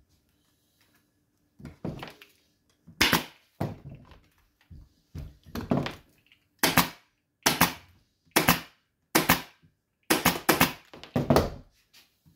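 Pneumatic upholstery staple gun firing staples through fabric into a wooden chair frame: about a dozen sharp snaps, roughly one a second, with several in quick succession near the end.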